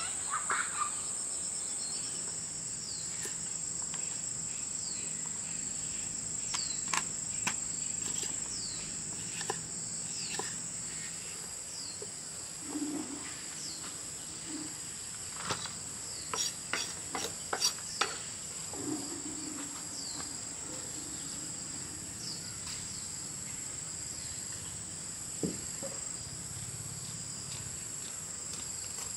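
A steady, high-pitched insect chorus of crickets or cicadas chirring, with scattered knocks and clicks that are the loudest events and bunch together about halfway through.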